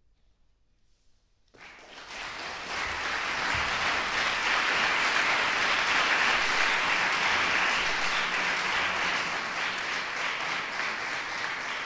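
About a second and a half of near silence, then an audience breaks into applause that swells over a couple of seconds, holds steady, and eases slightly near the end.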